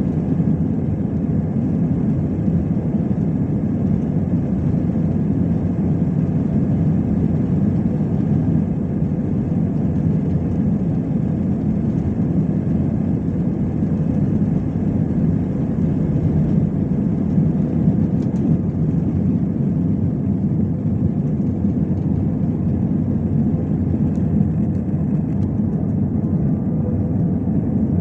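Steady, even engine and air noise of an Airbus A320-216 with CFM56-5B engines, holding a constant level with no change in pitch.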